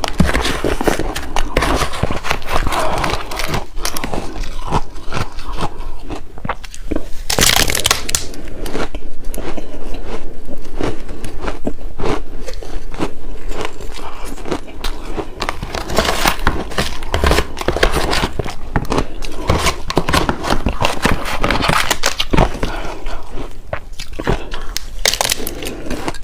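Shaved ice being bitten and chewed, a steady run of crunching and crackling.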